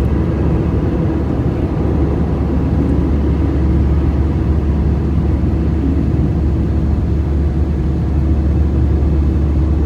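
Airliner in flight after takeoff: a loud, steady rumble of jet engines and airflow with a deep hum underneath, unchanging throughout.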